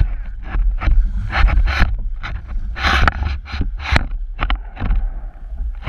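Choppy, churned-up seawater splashing and slapping irregularly against a plastic sit-on-top kayak and its paddle, with wind rumbling on the microphone.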